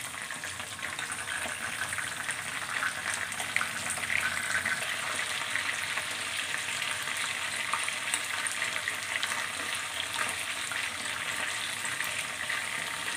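Chicken pieces shallow-frying in hot oil in a kadhai: a steady sizzle with scattered small pops and crackles, while the pieces are turned over with tongs and a slotted spatula.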